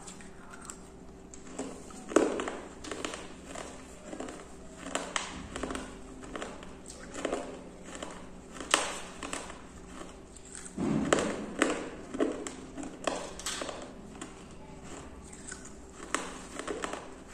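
Shards of a broken clay kulhad (terracotta cup) being crunched between the teeth close to the microphone: an irregular run of sharp, brittle crunches, with a denser burst about 11 seconds in.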